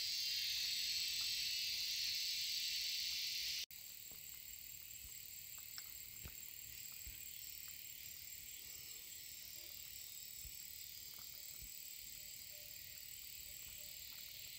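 Steady high-pitched insect drone in the grass. It drops sharply in loudness about three and a half seconds in and carries on quieter, with a few faint clicks.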